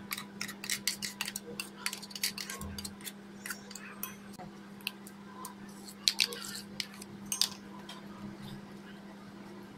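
Steel spoon scraping and knocking against a steel mixer-grinder jar and bowl as ground dal batter is scraped out: irregular clinks and scrapes, thickest in the first three seconds and again about six to seven seconds in.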